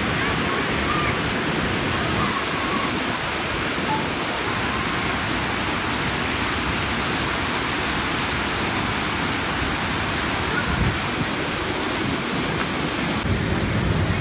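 Waterfall pouring over a rock ledge into a churning plunge pool: a steady rush of whitewater.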